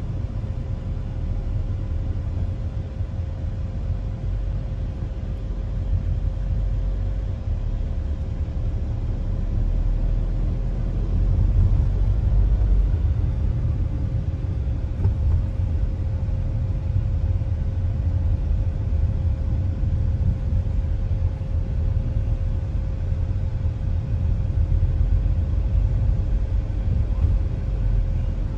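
Steady low rumble of a car driving at highway speed, heard from inside the cabin: tyre, road and engine noise, with a faint steady tone running through it.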